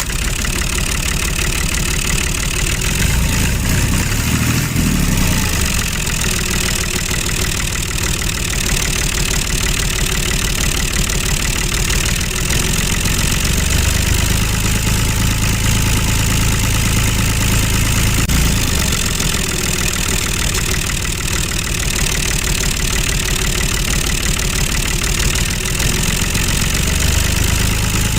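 Engine running steadily, with a dense, even hum whose low tone shifts a few times.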